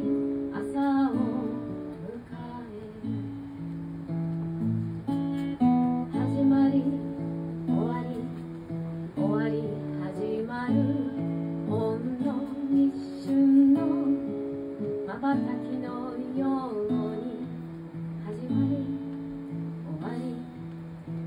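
Acoustic guitar strummed and picked through a slow song, with a woman singing over it at times.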